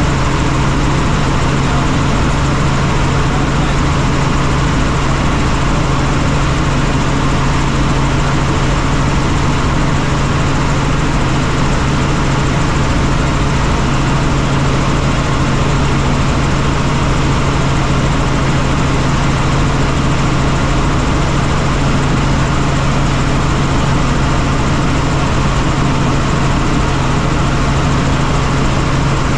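Helicopter in flight: steady, loud engine and rotor noise with a constant deep hum, unchanging throughout.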